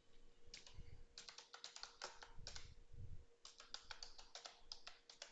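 Faint typing on a computer keyboard: quick runs of keystroke clicks with short pauses between them, over a faint steady hum.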